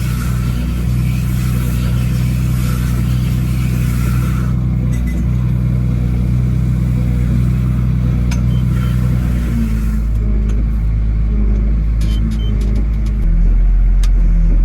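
Tractor engine running steadily under load, its note shifting slightly a few times, with a deeper rumble near the end.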